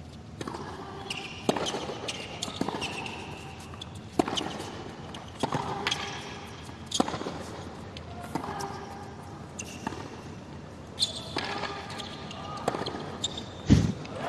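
Tennis rally on a hard court: the ball is struck back and forth by racquets and bounces on the court, a sharp knock about every second to second and a half. The last, strongest hit comes near the end.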